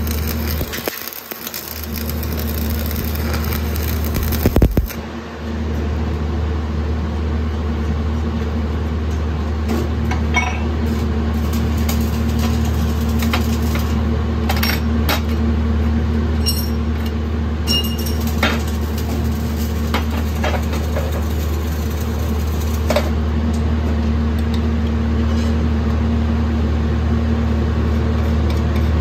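Shielded metal arc (stick) welding arc crackling and hissing on a steel plate, cutting off about five seconds in. After that a steady low hum continues, with scattered light metallic clinks and taps as the welded steel plate is worked over.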